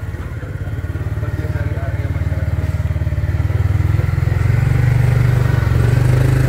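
A motor vehicle engine running close by with a fast, even beat, growing steadily louder and loudest near the end.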